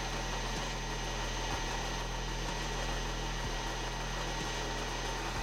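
Milling machine spindle running steadily while a 1.5-inch hole cutter bores through steel, with a faint regular tick about once a second.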